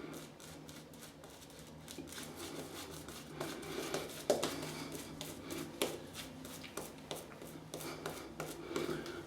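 Badger shaving brush working soap lather into facial stubble: a soft, continuous brushing and scrubbing with many small crackling clicks from the lather.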